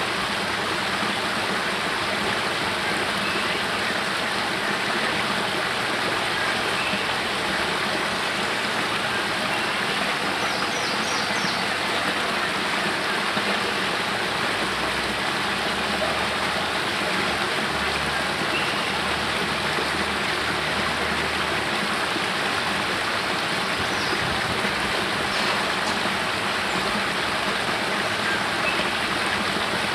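Spring water pouring from a cave mouth down a small rocky cascade into a pool: a steady, even rush of falling and splashing water.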